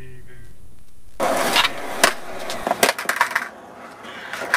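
Skateboard rolling, starting suddenly about a second in, with several sharp clacks of the board.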